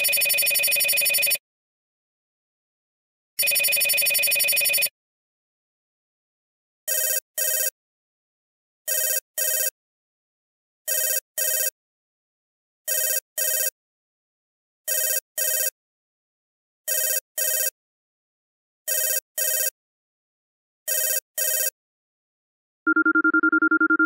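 Phone ringtones played one after another: first a long electronic ring sounding twice, about a second and a half each; then from about seven seconds in a different ring in double bursts, ring-ring, every two seconds, eight times; near the end a third ring begins, a steadier two-tone sound.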